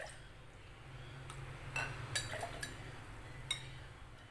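A metal spoon clinking lightly against a glass bowl and glassware while scooping, about five separate clinks, over a faint low steady hum.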